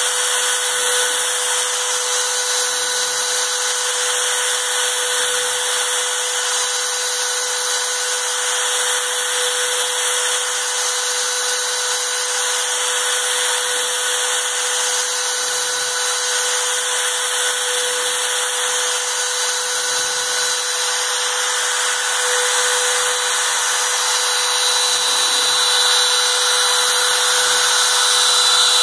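A router spindle on a home-built CNC table runs steadily, cutting a board with a constant whine over its noise. The sound changes in a pattern that repeats about every four seconds as the machine runs through its cutting program.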